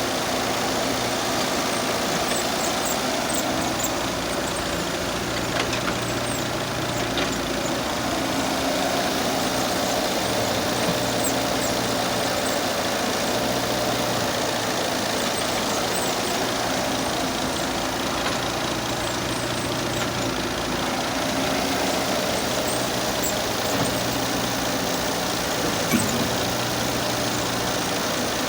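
Heavy diesel machinery engine running steadily at an even speed, with a single short knock near the end.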